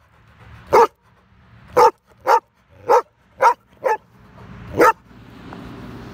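Large white dog barking: seven short, sharp barks over about four seconds, the last a little apart from the rest. They are play barks, given while the dog crouches in a play bow. A quieter steady rustle follows near the end.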